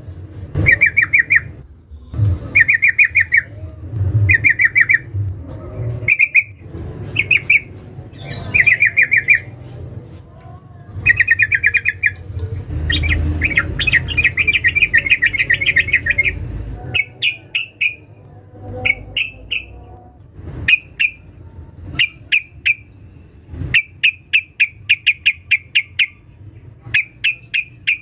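Female yellow-vented bulbul (trucukan) calling to males. It gives a series of fast, rattling chatter phrases, each about a second long, then a longer run of chatter. In the last third the phrases give way to short, sharp chirps in quick succession.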